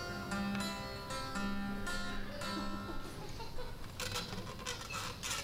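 Acoustic guitar played solo: picked notes ring out over a repeated low bass note. About four seconds in, the held notes fade and a run of sharp, scattered clicks takes over.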